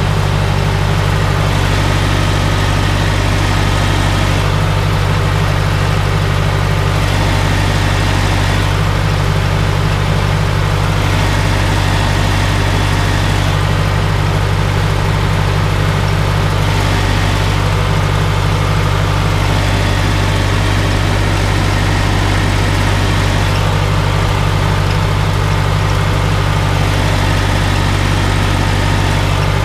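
Old tractor's diesel engine running steadily under load while pulling a stubble plough, heard from the driver's seat.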